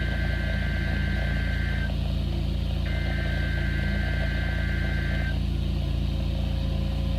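NOAA Weather Radio SAME header: two bursts of digital data tones, each about two and a half seconds long, with about a second's gap between them, over a steady low receiver hum. These bursts open the weekly test of the warning alarm.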